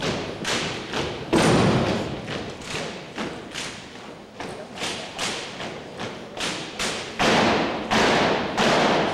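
A drill team's boots stamping in unison on a gymnasium floor as the squad marches, about two steps a second, each stamp echoing in the hall. From about seven seconds in come louder, heavier unison thumps, about three every two seconds.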